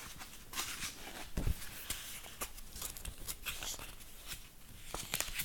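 Faint rustling of a picture book's paper pages as it is held and handled, with a soft low thump about a second and a half in.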